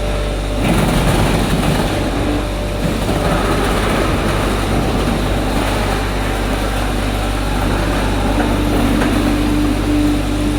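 Diesel engine of a portable hydraulic baler running steadily, with a brief surge about a second in and a steady tone joining near the end.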